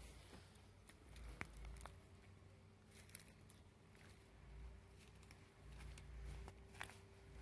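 Near silence, with a few faint scattered crackles from charcoal burning in a chimney starter over a low rumble.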